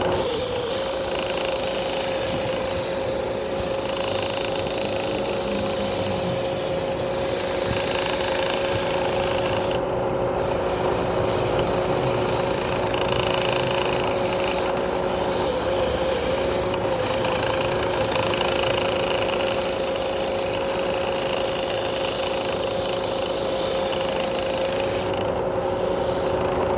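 Wood lathe running with a steady motor whine while a cutting tool scrapes the spinning wood, a continuous rasping hiss. The cutting lets up briefly about ten seconds in and again near the end.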